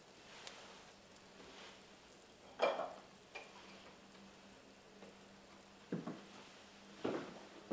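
Food frying in a pan with a soft, steady sizzle, broken by a few short clinks of kitchen utensils and dishes, the loudest a ringing clink about two and a half seconds in.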